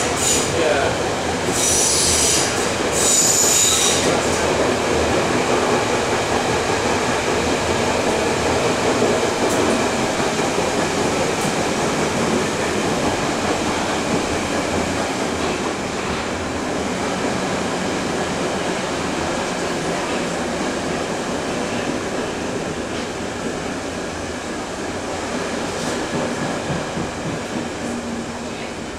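Berlin U-Bahn D57 prototype car running through a tunnel, heard from inside the cabin: a steady rumble of wheels on rail, with three short high wheel squeals in the first few seconds. The running noise eases off gradually toward the end.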